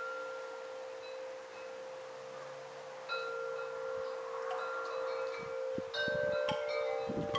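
Wind chimes ringing, their metal tones sustaining long and struck afresh about three seconds in and again near six seconds. There are a few low rumbles near the end.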